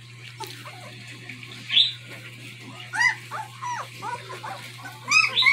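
Newborn German Shepherd puppies squeaking and whining: short, high, arching cries, several close together, loudest about two seconds in and again near the end. The puppies are crying as they search for their absent mother.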